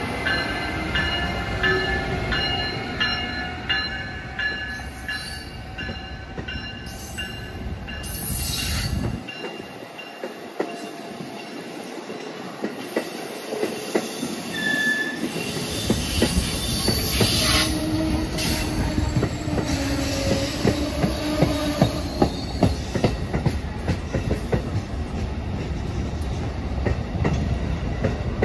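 Amtrak passenger train of Amfleet coaches behind a Siemens ACS-64 electric locomotive moving slowly past. Its wheels squeal in steady high tones and click over rail joints and switches.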